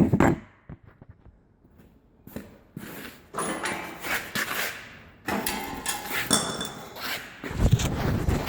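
Metal parts knocking and scraping during hand work on a tiller, with brief metallic ringing. A loud knock at the start and a heavy thump near the end.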